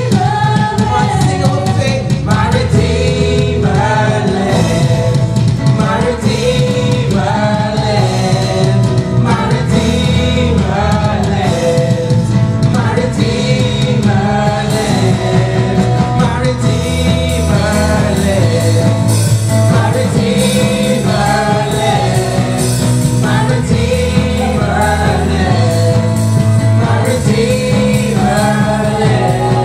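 Gospel worship song: voices singing a repeating melody in short phrases over a band with drums and bass.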